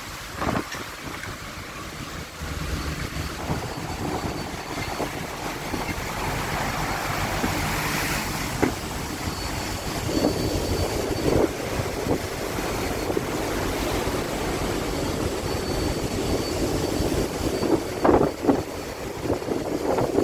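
Strong wind buffeting the microphone and rough seas breaking and rushing around a ship's stern, over a low rumble. A few sharper gusts hit near the end.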